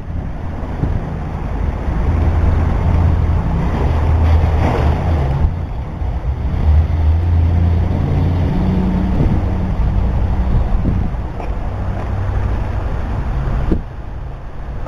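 Wind buffeting the camera's microphone: a loud, uneven low rumble that drops off briefly near the end.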